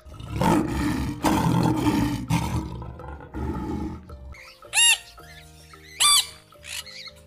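A lion roaring in several rough pulses over the first four seconds, then two short, high, arching calls from an African grey parrot about five and six seconds in. Background music with steady held notes plays underneath.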